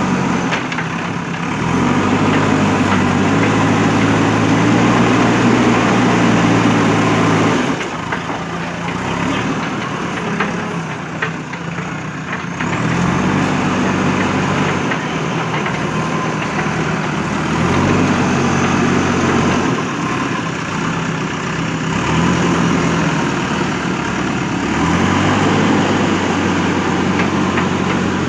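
JCB backhoe loader's diesel engine running, rising in pitch and holding for a few seconds about five times and dropping back toward idle between, as it takes load while digging. Scattered knocks of bucket and soil come through in the quieter stretch.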